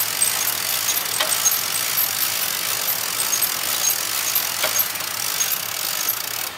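Steady running noise of work vehicles' engines at a rail-unloading site, with a couple of sharp metallic clicks, about a second in and again near five seconds.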